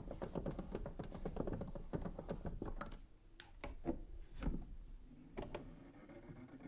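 Handling noise from an antique gramophone: a rapid run of small clicks for about three seconds, then a few separate taps and knocks as the soundbox with its needle is lifted and held over the record.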